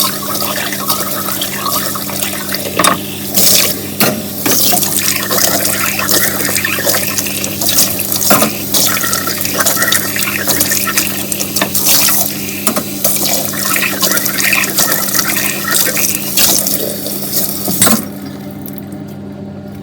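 Kitchen tap running into a sink while dishes are washed under it, with occasional sharp clinks. The water shuts off abruptly near the end, leaving a steady low hum.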